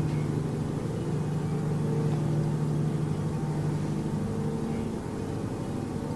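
Steady low mechanical drone, a strong constant hum with fainter higher tones that waver slightly in pitch. Its source is unidentified: it sounds like an airplane, but it ran for hours without stopping.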